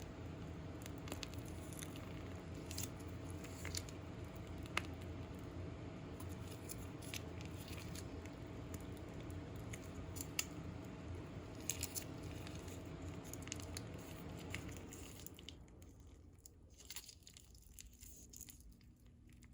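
A steady hum with a faint constant tone, which cuts off about 15 seconds in, under scattered light clicks, scrapes and squishes of food being handled.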